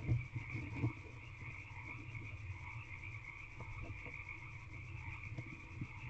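A steady chorus of frogs calling. In the first second, a few soft knocks and rustles come from the barn owl shifting on the wood shavings of the nest box.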